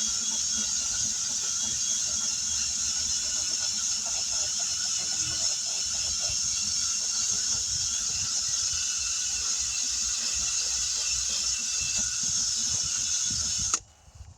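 A power buffer wheel grinding the inner liner of a tire around a puncture, roughing up the rubber for a patch. It runs as a steady high whine over a rough grinding noise, then cuts off suddenly near the end.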